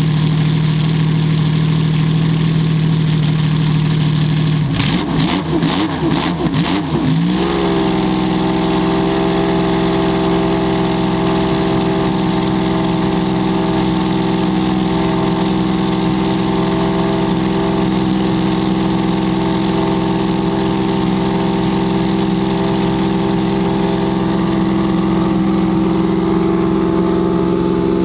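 Lamborghini Miura SVR's transverse V12 running: a steady idle, then a few quick throttle blips about five seconds in, after which it settles back into a steady idle at a slightly higher pitch.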